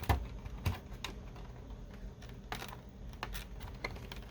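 Irregular clicks and knocks from handling a figure's cardboard box and plastic packaging, with a louder knock right at the start and another soon after.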